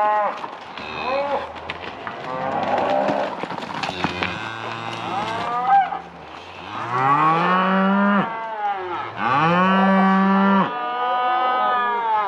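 Cattle bawling: a run of long, drawn-out calls that rise and fall in pitch, loudest and longest in the second half.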